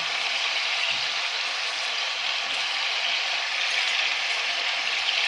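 Liver and vegetables sizzling steadily in hot oil in a pot.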